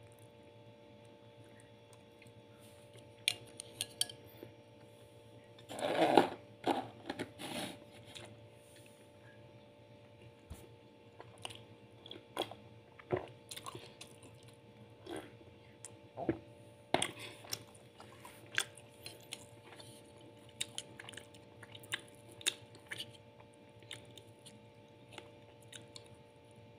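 A person eating rice and chicken with a spoon: irregular short clicks and scrapes of the spoon against the plate mixed with chewing, with a louder cluster of crunching about six seconds in.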